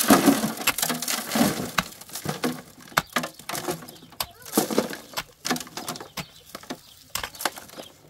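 Pickaxe breaking into a bank of dry, stony earth, with loose soil and stones crunching, sliding and being scooped into a metal wheelbarrow: a dense run of scraping and knocks in the first two seconds, then scattered knocks and scrapes.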